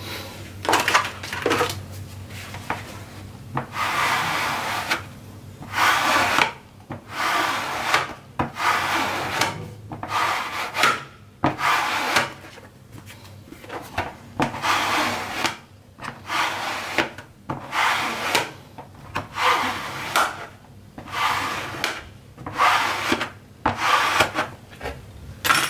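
A long series of hand strokes rubbing and scraping over suede leather glued to a Kydex sheet on a wooden workbench, about one a second and uneven in length, as the leather lining is worked onto the plastic.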